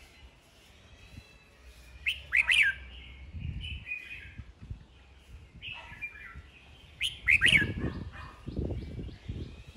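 Red-whiskered bulbul singing short phrases of quick, sliding whistled notes, three bursts spaced a few seconds apart. This is the bird's competitive fighting song. Low rumbling noise runs under the later phrases.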